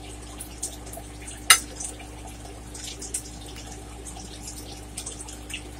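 Wet chewing and mouth smacking while eating crawfish étouffée: a scatter of small wet clicks, with one sharper click about a second and a half in, over a faint steady hum.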